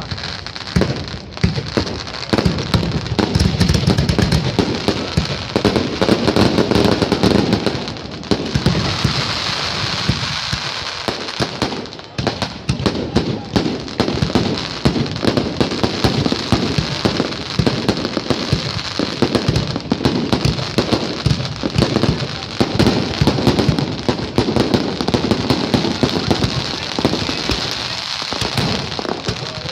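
Aerial fireworks display: a dense, unbroken barrage of shell bursts and crackling, many reports a second.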